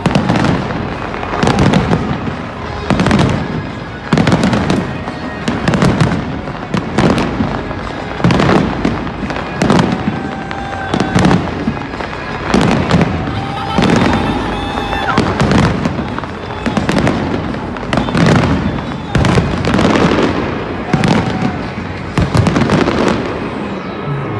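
Aerial firework shells bursting in quick succession, a loud bang every second or so, each trailing off in a rumbling echo.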